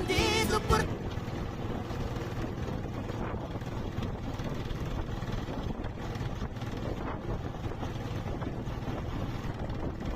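Small boat's motor running steadily under way, with wind buffeting the microphone.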